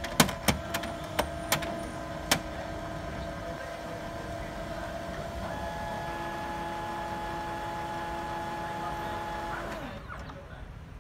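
HP Color LaserJet Pro MFP M181fw running its power-on start-up cycle: internal motors run with a steady whine, a higher tone joining about halfway, and stop about a second before the end. Six sharp clicks come in the first two and a half seconds.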